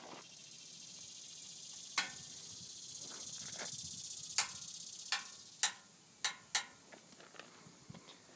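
Footsteps and sharp metallic taps on the steel steps and grating of a Caterpillar 773F haul truck, about half a dozen distinct clicks. Under them a steady high hiss swells for the first few seconds and fades by about two-thirds of the way through.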